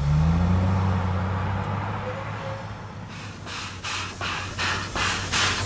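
A low, steady mechanical drone, its pitch rising briefly at the start. About three seconds in, the exhaust beats of a JS-class 2-8-2 steam locomotive working hard to start a heavy coal train come in at about three chuffs a second, growing louder.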